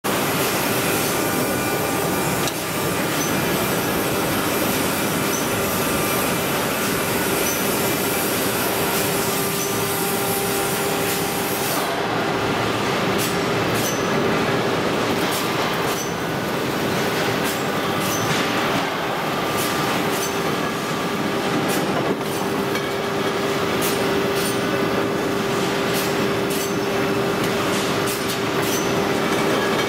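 A hot rolling mill rolling red-hot steel rebar: a dense, continuous mechanical din with a steady hum. From about halfway on, frequent sharp clicks come through it.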